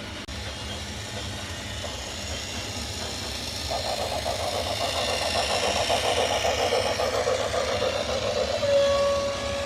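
An engine-like mechanical buzz. It grows louder and takes on a fast rattle from about four seconds in, then gives way near the end to a steady single tone.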